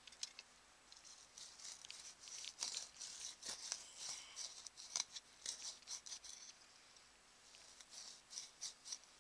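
Hand tool digging a planting hole in dry, crumbly garden soil: quick, irregular scratching and crunching of earth and grit. The scraping comes in two spells, a longer one from about a second in and a shorter one near the end.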